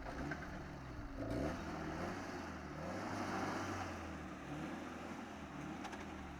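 Off-road 4x4's engine running under load, its revs rising and falling several times.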